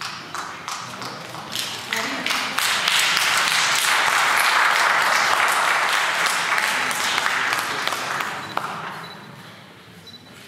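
Audience applauding: clapping builds up about two seconds in, holds, then dies away near the end.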